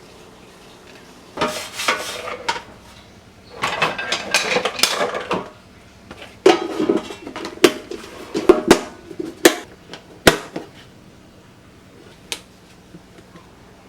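Kitchen containers and dishes being handled, knocking and clattering in three bursts of clicks and knocks, loudest in the last burst, with one more click near the end.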